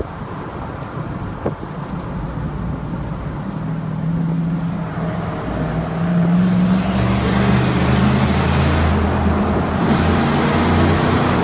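Chevrolet 1500 pickup's straight-piped six-cylinder engine heard from the cab with the windows down. The exhaust note gets louder and its pitch climbs a little about halfway through as the truck accelerates into a tunnel.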